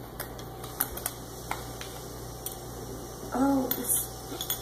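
Metal spoon scooping in a glass condiment jar: a few light clicks and scrapes of the spoon against the glass. A short vocal sound from one of the kids, about three and a half seconds in, is the loudest moment.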